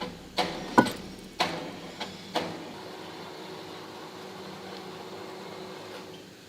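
Five sharp knocks in quick succession, the loudest a little under a second in, then a steady low hum that drops away near the end.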